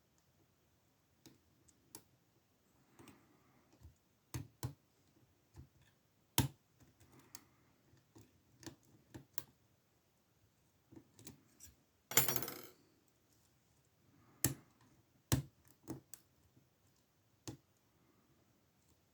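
Lock pick and tension wrench working in an old Ruko padlock: scattered sharp metallic clicks, with a brief scraping rasp about twelve seconds in.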